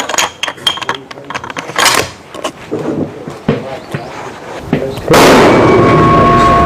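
Barrett M99 rifle being shot and handled: a run of sharp clicks and knocks, with a loud crack about two seconds in. About five seconds in, a loud, steady rushing noise starts suddenly and carries two held tones.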